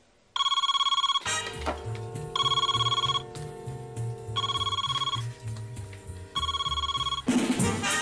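Desk telephone's electronic ringer ringing four times, about two seconds apart, each ring lasting under a second. Background music comes in under it after the first ring and swells near the end.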